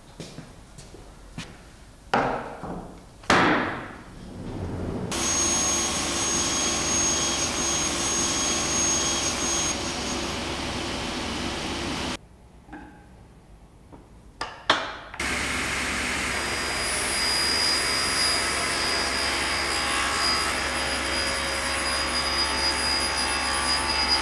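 Sliding table panel saw running with its dust extraction, a steady whine over hiss, as a slatted oak tambour panel is fed through. It starts about five seconds in, stops abruptly near the middle and comes back a few seconds later. Before it there are a few knocks and a scrape, and in the gap a couple of sharp knocks.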